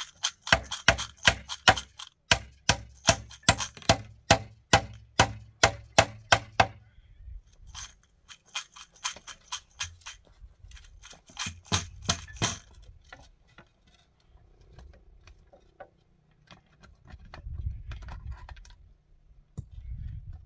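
A steady run of sharp strikes, about three a second for some six seconds, then a few shorter groups of strikes and lighter knocks.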